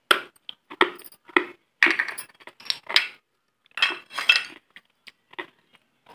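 Pieces of fired terracotta from a gullak (clay money bank) clinking and knocking together: a run of short, uneven, hard clinks with brief ringing.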